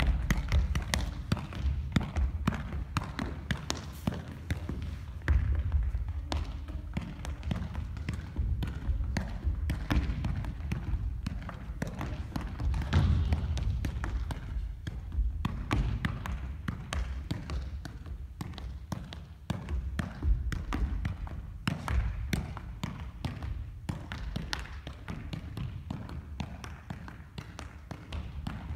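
A soccer ball being juggled: a long run of quick, soft taps and thuds as it is kept up off the feet and knees, echoing in a large gym hall.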